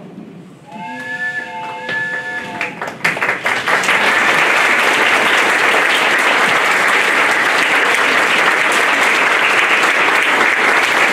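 Audience applauding: the clapping swells over the first few seconds and then holds steady and loud. Just before it fills in, two short held chords of music sound.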